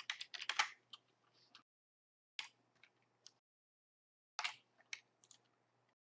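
Computer keyboard typing: three short bursts of keystrokes about two seconds apart.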